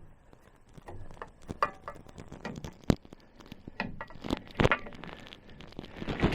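Scattered clicks and knocks of parts being handled and fitted in a small room, with a sharp click about three seconds in and a couple of heavier knocks a little after four seconds.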